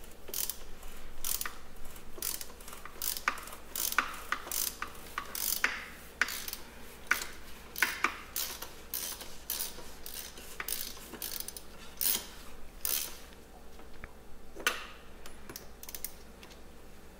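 Socket ratchet clicking through repeated short strokes as it loosens a 32 mm cap wrench on an oil filter housing.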